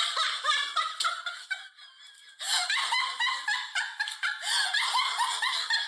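High-pitched laughter in quick repeated bursts. It breaks off for a moment about two seconds in, then starts up again.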